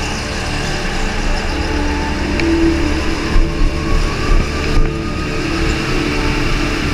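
Go-kart engine running at racing speed, heard from on board the kart, with a few louder swells about halfway through.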